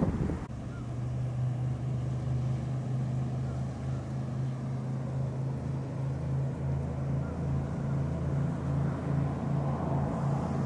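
Large express cruiser's inboard engines running at speed as it passes: a steady low drone with a light rush of water beneath it. The first half-second holds a different boat's noise, cut off abruptly.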